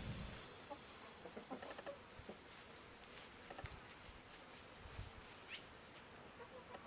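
Music fading out right at the start, then faint scattered ticks and pecking-like taps with one short rising bird chirp a little past halfway.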